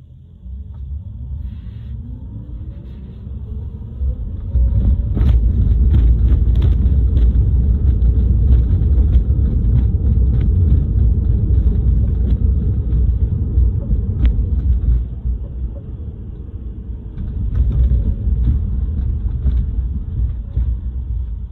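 New Tesla Model 3 driving at about 20–25 mph: a steady low rumble of road and tyres that swells about four seconds in, with a faint rising whine over the first few seconds. Scattered sharp knocks cut through it, a cluster about five to seven seconds in and more later, the kind of thump the owner is recording as a fault in the new car.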